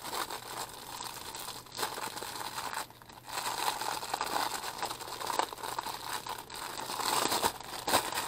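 Thin clear plastic wrapping crinkling and rustling in the hands as a radio holster case is worked out of it, with a short pause about three seconds in.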